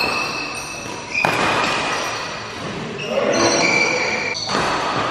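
Badminton rally: rackets striking the shuttlecock, with sharp hits about a second in and again near the end, each ringing out in the hall's echo. Short high squeaks of shoes on the court come in between.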